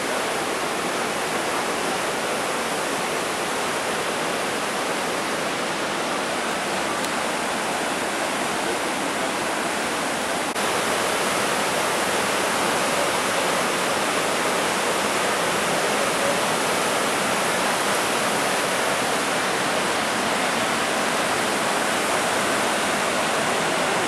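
Rhine Falls: the steady rush of a large waterfall's white water pouring over rocks. It gets slightly louder about ten seconds in.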